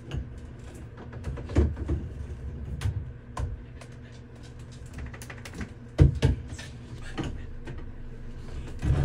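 Shower head being unscrewed by hand from the shower arm: a scatter of light clicks and rattles from handling the head and its fittings, with a few heavier knocks about a second and a half in and around six seconds in.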